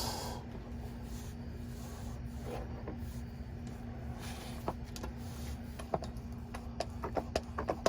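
Handling of a plastic gear-oil bottle being capped: soft rubbing, then a quick run of light plastic clicks in the second half, over a steady low hum.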